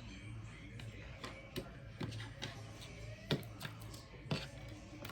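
Sharp plastic clicks and taps from a toy mini mixer being handled and worked, about two to three a second and a little uneven, over a low steady hum.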